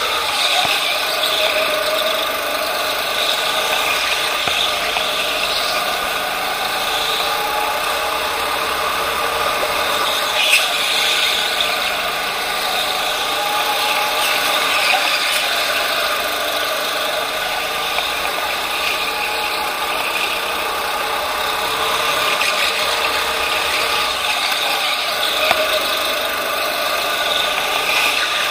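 Racing go-kart running at speed, heard from on board: a steady mechanical whirring and rattling whose pitch rises and falls gently through the corners.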